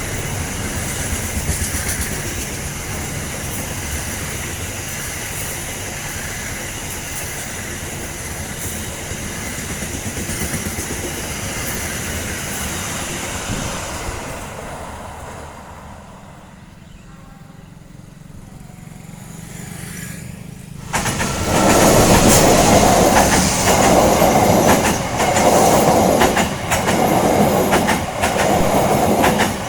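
Passenger train running past, first as a steady rumble. Then, after a quieter stretch, it starts suddenly and loud with wheels clattering over rail joints in a regular rhythm of about one beat a second.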